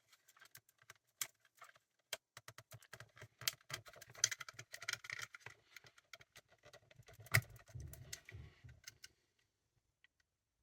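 Small plastic clicks and rattles of wiring connectors being unplugged and handled inside a portable radio's casing. There is a rapid, uneven series of light clicks with one sharper snap a little past the middle, and it stops about a second before the end.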